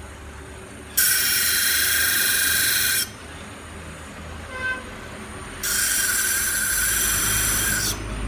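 Blade-sharpening grinder for 갈름기 (leather-working) knives, grinding in two stretches of about two seconds each with a high, steady whine. A quieter hum runs between them.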